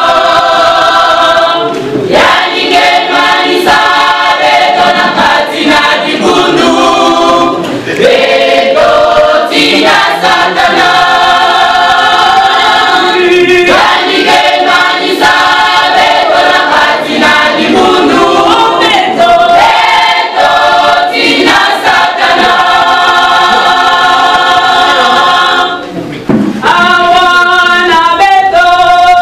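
Women's church choir singing a gospel song a cappella in close harmony, holding long chords phrase after phrase, with a short break near the end before the singing resumes.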